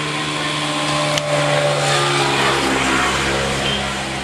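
A motor running with a steady low hum, its pitch rising slightly about halfway through.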